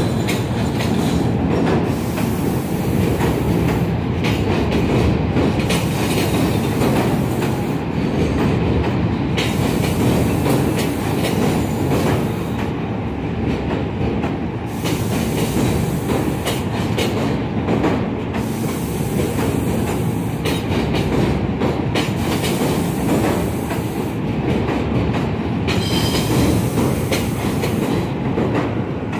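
R46 New York City subway cars passing steadily on elevated track, a continuous heavy rumble of wheels and trucks with repeated clicks as the wheels cross rail joints.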